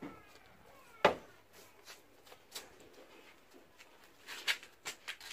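Scattered light knocks and clicks of a snorkel body being handled and fitted against the side of a ute, with one sharp click about a second in and a cluster of knocks near the end.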